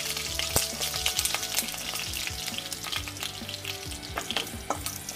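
Cashew pieces and freshly added curry leaves sizzling in hot coconut oil in a non-stick pan, with a steady hiss and many quick crackling pops as the leaves splutter.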